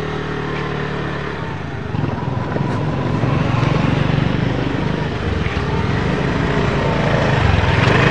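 Small step-through motorbike engines running, getting louder about two seconds in.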